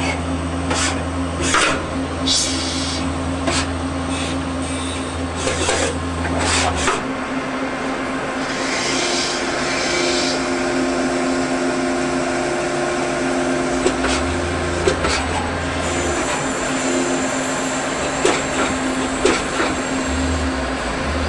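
Citizen K16 sliding-headstock CNC automatic lathe running through a machining cycle. It gives a steady motor hum under a deeper drone that stops about seven seconds in and comes back twice, with sharp clicks and knocks of the tooling scattered through and a brief hiss about nine seconds in.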